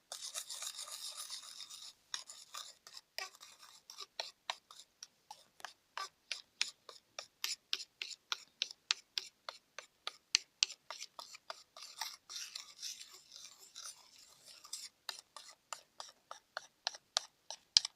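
A utensil scraping against its container while stirring a shaving-foam and glue slime mixture, in quick repeated strokes, a few a second.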